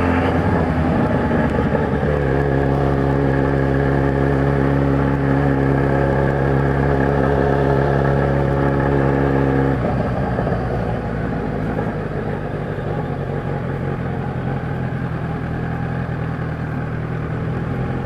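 Kawasaki Z1000's inline-four engine heard from the rider's seat while riding, holding a steady note. About halfway through, the note drops lower and turns rougher.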